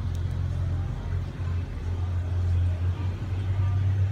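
Low, steady rumble of a car engine idling, wavering slightly in level.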